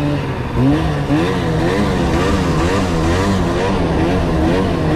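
Snowmobile engine running under varying throttle, its pitch rising and falling over and over.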